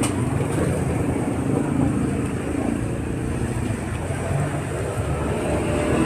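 Steady road traffic rumble of a busy street.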